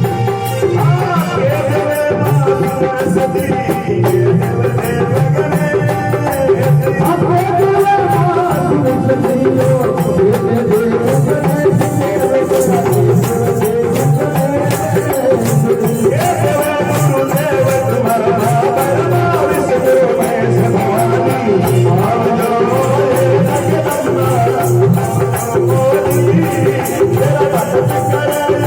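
Instrumental passage of a Rajasthani devotional bhajan: a keyboard melody over a steady drum beat and a rapid rattling percussion.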